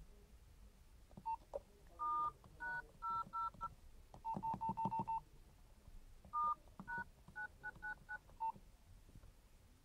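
Nokia 1011 keypad tones: a series of short two-tone DTMF beeps as keys are pressed in irregular groups, with a fast run of identical beeps near the middle. The keys being pressed enter a service code beginning *#999 that brings up the phone's software version.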